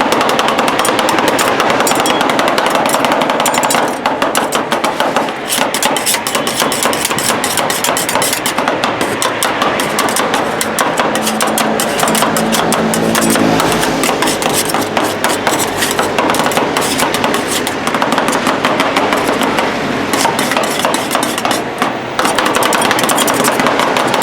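Two metal spatulas rapidly chopping and tapping on the cold steel plate of a rolled ice cream griddle, a fast, continuous clatter of strikes as the fruit, Oreo and cream are chopped and mixed.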